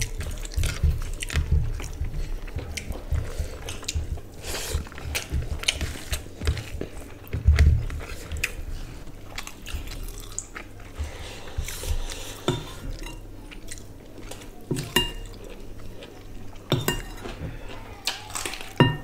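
Close-up eating sounds of two people eating rice and curry by hand: chewing, and fingers squishing through rice. Scattered sharp clinks of a steel serving spoon against china curry bowls and plates run through it.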